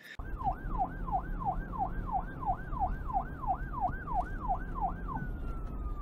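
Police-style siren yelping in quick repeated falling sweeps, about two and a half a second, then winding down in one long, slowly falling tone near the end, over a low steady hum.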